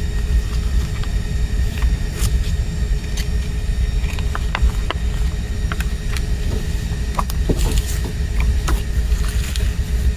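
A CD digipak, its booklet and paper obi strip being handled: scattered light clicks, taps and paper rustles, over a steady low rumble.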